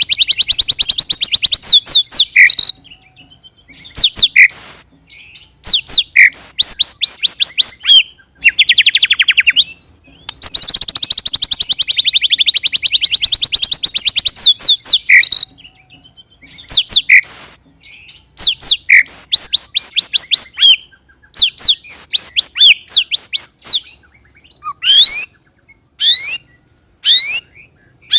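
White-rumped shama (murai batu) singing a 'roll and shoot' bait song: two long, very fast rattling rolls lasting several seconds each, broken up by loud, clear whistles that sweep steeply up and down. Toward the end the song turns to short whistle phrases separated by brief pauses.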